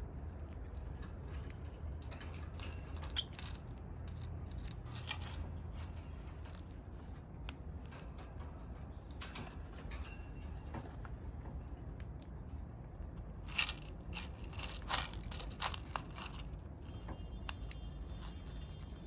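Lovebirds nibbling and crunching with their beaks: scattered small clicks over a low steady room hum, thickest about two-thirds of the way in.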